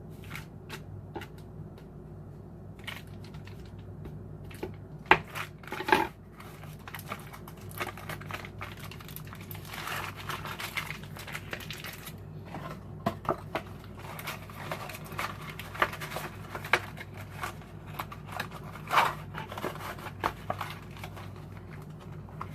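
Foil wrapper of a cream cheese block being crinkled and folded by hand, with scattered sharp clicks and knocks, the loudest two about five and six seconds in, over a steady low hum.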